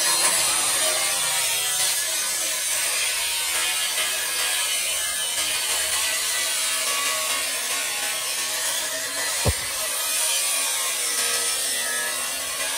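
Handheld electric angle grinder with a cut-off disc cutting through steel: a steady, high-pitched grinding hiss. One brief low thump about three quarters of the way through.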